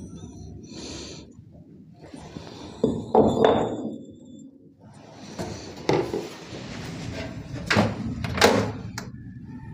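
Dull thunks and knocks as a concrete brick is set down on a tiled floor and pushed under a washing machine's base, then more knocks as the machine's sheet-metal top panel is handled. The loudest knocks come about three seconds in and twice near the end.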